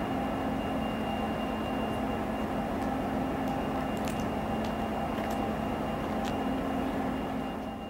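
FrontRunner commuter train's diesel locomotives running steadily as the train passes at a distance, a constant hum with a few faint clicks, fading out at the end.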